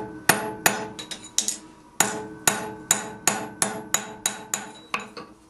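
Hand hammer driving a tapered steel drift into a punched hole in a small hot bar on the anvil, shaping the hole: a steady run of sharp ringing strikes, about two to three a second, growing fainter toward the end.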